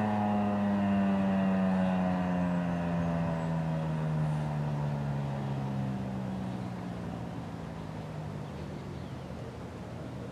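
Federal Signal 2001-SRN rotating outdoor warning siren winding down at the end of its alert signal, its pitch slowly falling and the sound fading away.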